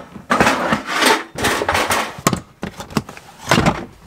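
A hard plastic storage tote being handled and opened: a run of clattering and scraping with a few sharp plastic clicks.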